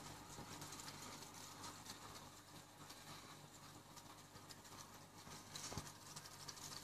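Faint fizzing crackle of aquarium air bubbles rising and breaking at the water surface, over a low steady hum. There is a single soft knock near the end.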